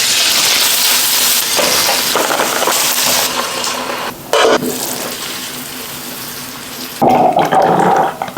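Kitchen cooking sounds in quick cuts. A long, even hiss fades over about seven seconds, broken by a short sharp sound about four seconds in. Near the end a different, louder sound takes over, with a steady tone running through it.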